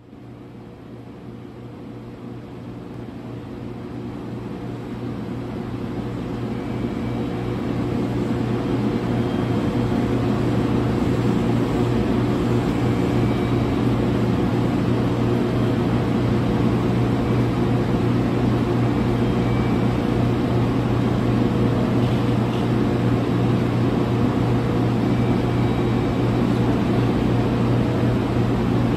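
Steady mechanical hum and whir of a parked train's running equipment, growing louder over the first several seconds and then holding steady.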